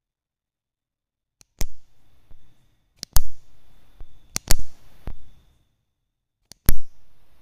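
Capacitor-bank spot welder discharging through its welding pen probes into a metal strip on a cylindrical battery cell: about five sharp snaps, one to two seconds apart. Most snaps have a faint click just before, as the probe tips touch the strip, and a short crackle after.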